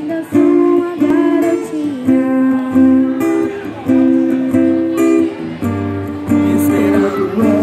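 Acoustic guitar strumming a steady run of chords, the chord changing about every second.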